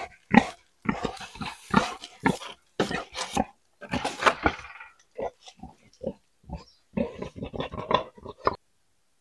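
Tame wild boar grunting in a rapid, irregular series of short calls that cut off abruptly near the end.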